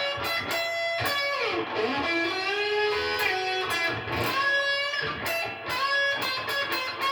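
Electric guitar playing a lead line of single sustained notes, with a downward slide about a second and a half in.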